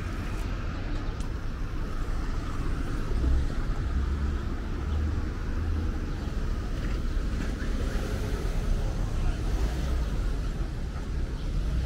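City street traffic: cars driving past and idling along a boulevard, a steady road noise with a low rumble.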